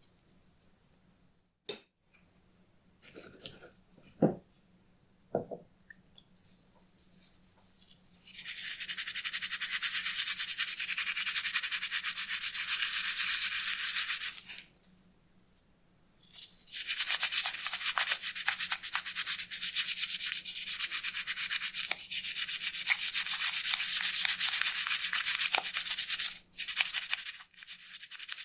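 A few light knocks, then fast, steady hand rubbing or scrubbing against a surface, as in brushing, sanding or polishing, in two spells of about six and ten seconds.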